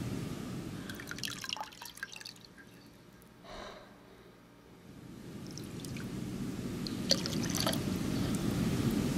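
Water dripping: scattered drops about a second in and again near the end, over a low rushing that dies away and then comes back.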